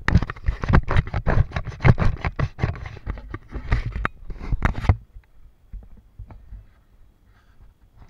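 Rapid, irregular knocking and scraping close to the microphone, which stops suddenly about five seconds in, leaving only faint scattered ticks.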